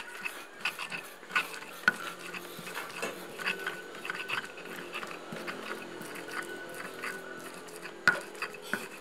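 Stone pestle grinding spice paste for peanut sauce in a wide stone mortar, with irregular scraping and tapping and two sharper knocks, about two seconds in and near the end.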